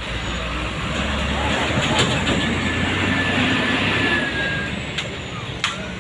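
A heavy road vehicle passing close by, its engine and tyre noise swelling to a peak about two seconds in and then easing off, with voices in the background.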